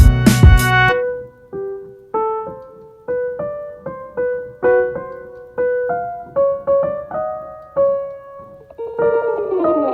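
Background music: a loud full-band passage breaks off about a second in, and a gentle piano melody of single notes follows, with a falling run near the end.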